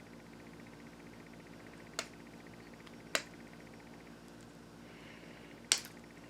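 Three sharp clicks of a Swiss Army pocket knife's blades and tools snapping open or shut, about two, three and near six seconds in, over faint room hum.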